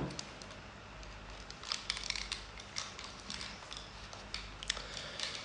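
Scattered clicks and rustles as over-ear headphones and their cable are handled and put on.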